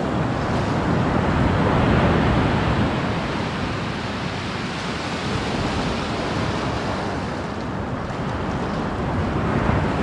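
Sea surf washing in on a pebble beach, a steady rush that swells slightly about two seconds in, with wind rumbling on the microphone.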